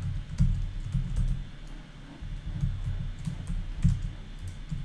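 Typing on a computer keyboard: an irregular run of key clicks with soft thumps as code is entered.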